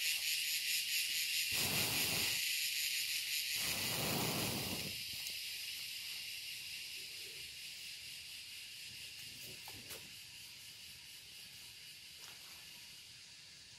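Pulsing, high-pitched insect buzz that fades steadily. Two short breathy rushes of noise come about two and four seconds in.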